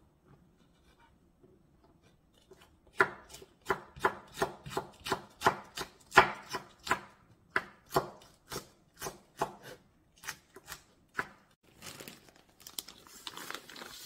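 Kitchen knife slicing chili peppers on a wooden cutting board: a steady run of sharp chops, about three a second, starting a few seconds in and stopping near the end, followed by soft rustling.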